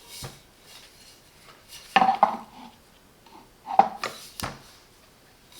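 A hammer with a fiberglass handle being handled: a few scattered light knocks and clicks of hard objects, spread unevenly.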